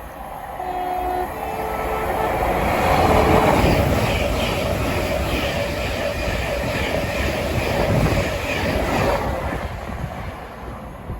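Thameslink Class 700 electric train passing through at speed. It sounds a short horn about half a second in, then its rumble and wheel noise build, hold for several seconds and die away near the end.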